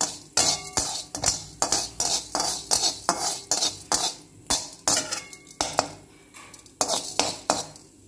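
A metal spatula scraping and clinking against a metal kadai, stirring fenugreek seeds roasting in a little oil. There are repeated strokes about twice a second, with a short pause about six seconds in, and they stop just before the end.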